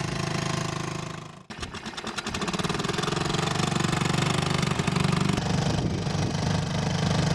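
Small Honda four-stroke outboard motor running on a dinghy. The sound breaks off briefly after about a second and a half, then comes back as a rapid chatter that settles into steady running.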